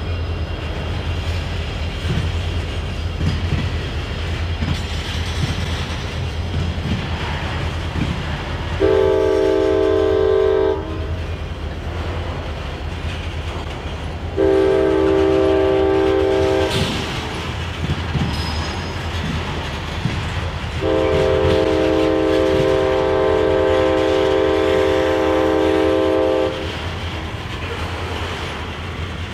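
Loaded tank cars of a freight train rolling by with a steady rumble and wheel clatter over the rail crossing. A locomotive horn sounds a chord in three long blasts, about nine, fifteen and twenty-one seconds in; the last is held about five seconds.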